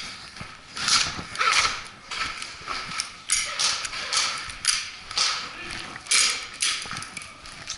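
Footsteps on a hard floor, a quick walk or jog of about two steps a second, each step a sharp scuffing knock.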